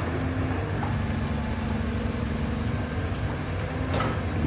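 Cat 320D hydraulic excavator's diesel engine running steadily with a low rumble and a held hum as the boom moves, with a single knock about four seconds in.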